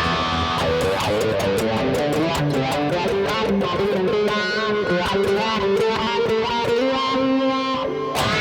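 Electric guitar played through an effects pedalboard: a line of single notes moving up and down in pitch, with short sharp percussive hits recurring throughout.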